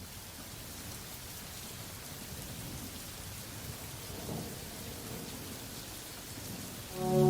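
Steady rushing noise of a winter wind storm, swelling briefly about four seconds in. Loud music starts right at the end.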